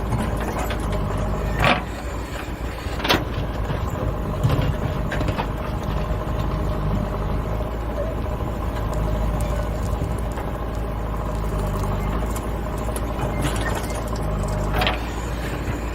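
JCB backhoe loader's diesel engine running steadily under work, with a few sharp knocks: about two seconds in, again about a second later, and once near the end.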